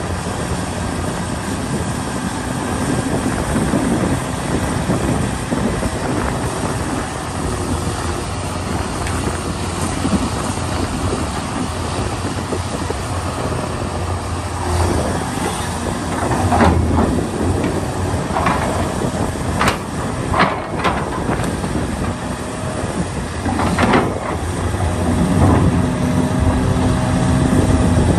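Large excavator digging: the diesel engine runs steadily under load. Several sharp metallic clanks come in the second half, and a steady whine joins near the end.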